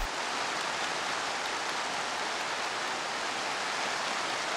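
A large seated audience applauding: dense, steady clapping with no single claps standing out.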